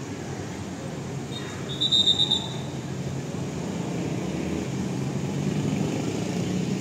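Bus and motorcycle engines running at low speed, a steady low drone that grows slowly louder as the bus pulls out. About two seconds in, a short high trilling whistle cuts through.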